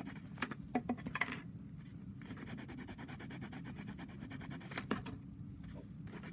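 Colored pencil rubbing back and forth on paper as an area is shaded in, with a few light clicks and taps.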